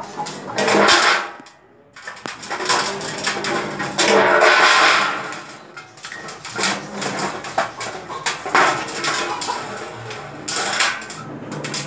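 A chicken's feet splashing and scraping in a shallow stainless steel plate of water, with irregular metallic clanks and knocks from the plate and two louder splashing stretches, about a second in and again around four seconds in.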